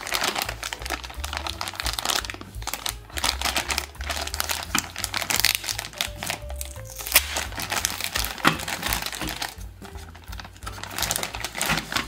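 Plastic packaging crinkling as it is handled, in stretches with brief pauses, over background music.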